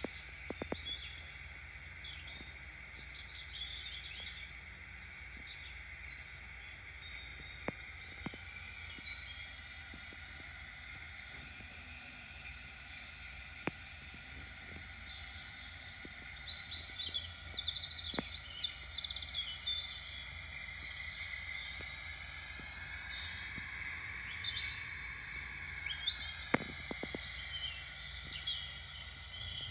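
Birds chirping and twittering in many short, quick calls over a steady high insect drone, like a countryside nature ambience.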